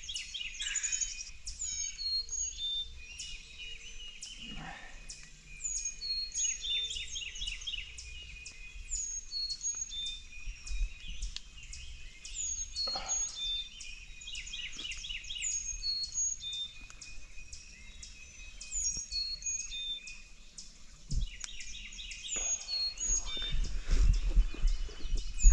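Several songbirds singing together in woodland: many overlapping high chirps and short whistled phrases repeating over and over. A few low thuds come near the end.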